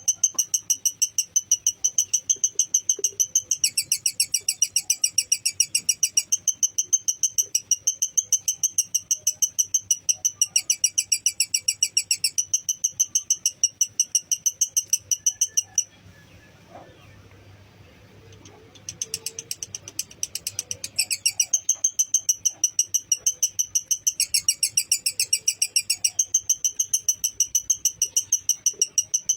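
Lovebird's long 'ngekek' chattering trill: rapid, evenly repeated shrill notes that keep going. They break off for about three seconds a little past the middle, then start again.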